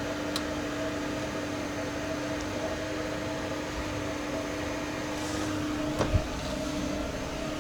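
VAZ 2114's in-tank electric fuel pump running with a steady, even hum, not shutting off after a short prime; the fuel system is not building rail pressure. A couple of faint clicks sound over it.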